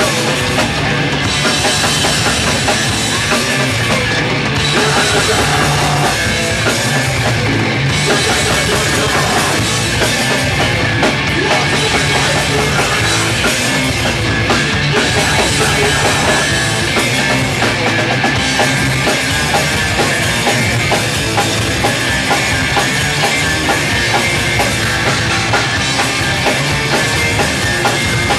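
Hardcore punk band playing live, with drum kit and electric guitar going loud and unbroken.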